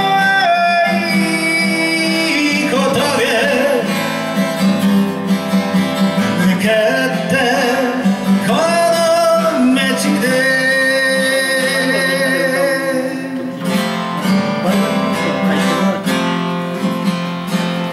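Acoustic guitar strummed under a singer's voice in a Japanese folk song; the voice stops about three-quarters of the way through, leaving the guitar playing alone.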